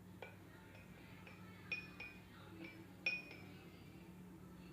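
A spoon clinking against a cup of tulsi kadha as a spoonful of honey is stirred in: a series of light clinks, each with a short high ring, the loudest about three seconds in.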